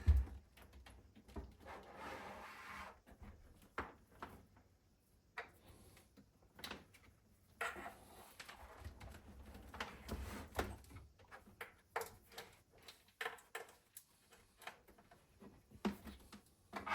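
Handling noises from reconnecting the cables at the back of a subwoofer and setting it in place. There is a low thump at the start, a stretch of rustling about two seconds in, and scattered clicks and knocks throughout.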